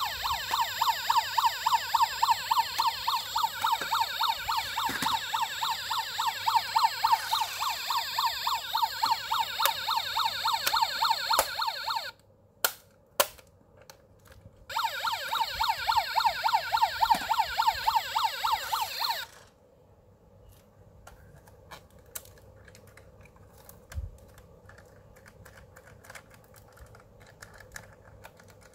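Toy police van's built-in electronic siren playing a fast, rapidly repeating wail. It cuts off about twelve seconds in, with a couple of sharp clicks, sounds again for about four seconds, then stops, leaving only faint clicks of the plastic model being handled.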